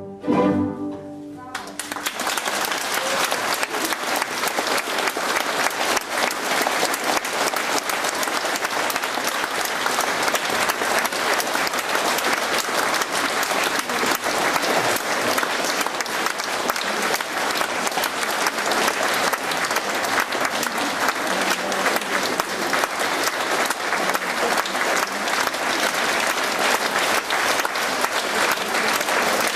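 A string orchestra's final chord ends in the first moment. After a brief pause an audience breaks into steady, sustained applause.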